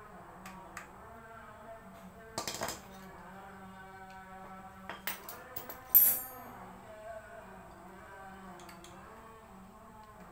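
Metal hand tools and parts clinking and clattering. There is a cluster of knocks about two and a half seconds in and a few light clicks around five seconds. The loudest is a single ringing clink about six seconds in.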